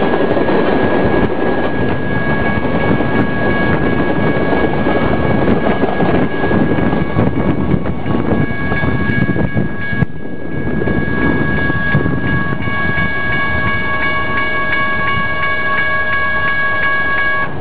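Freight train's tank cars rolling past on the rails, the wheel noise dropping off about ten seconds in as the end of the train clears the crossing. A grade-crossing warning bell rings throughout, its rapid repeated strikes plainer once the train is gone.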